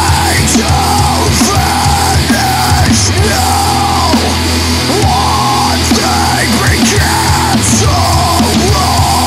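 Loud hardcore punk / thrash metal song by a full band: distorted electric guitars, bass and fast drumming, with a riff that repeats about twice a second.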